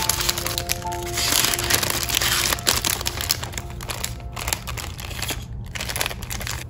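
Paper bag crinkling and rustling, with quick crackles, as stickers are slid inside and the top of the bag is folded over. Soft background music plays under the first half.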